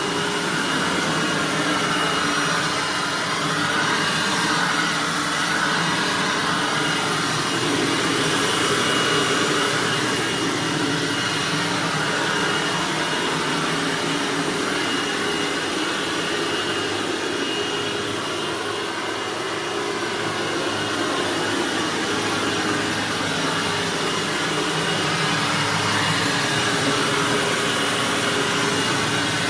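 Hoover WindTunnel bagged self-propelled upright vacuum running continuously over carpet, a steady motor and airflow sound with a thin high whine, its level swelling and easing gently.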